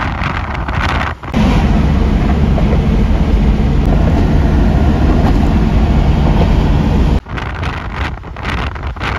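A moving vehicle's steady low rumble with wind noise on the microphone, starting abruptly about a second in and cutting off suddenly about seven seconds in.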